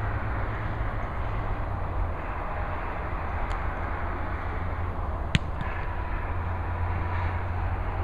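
Steady rumble of highway traffic, with one sharp smack of a foot kicking a football a little past halfway.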